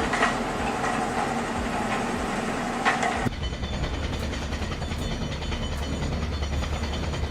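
Heavy excavator's diesel engine running with a dense mechanical din. About three seconds in, the sound changes abruptly to a deep, steady engine hum.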